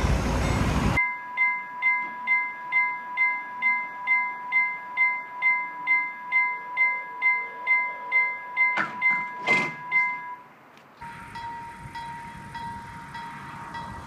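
Level-crossing warning bell ringing with barriers down: an electronic ding repeating about twice a second over a steady tone. It stops a little after ten seconds in, and after a cut a fainter crossing bell rings. The first second holds loud passing-train noise.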